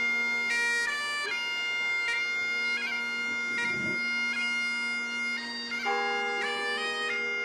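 Bagpipes playing a slow tune over steady drones. The melody moves in held notes broken by quick grace-note flicks.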